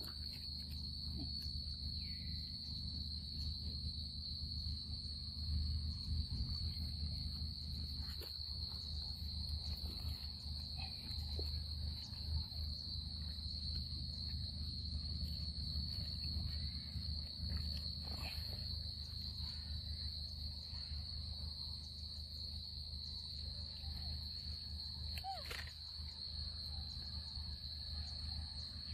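Steady high drone of evening insects, with a low rumble beneath it. A few short rising squeaks from young macaques come through, the clearest a quick upward squeal late on.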